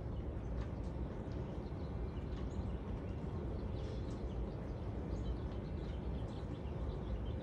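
Outdoor ambience: small birds chirping now and then over a steady low background rumble.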